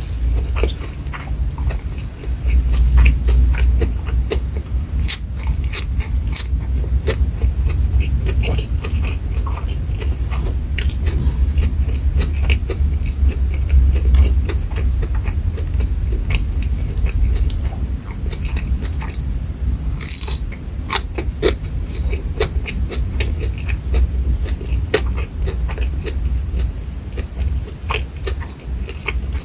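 Close-miked eating by hand of fried shrimp, rice and lettuce: biting and chewing with many sharp clicks and crunches from the mouth.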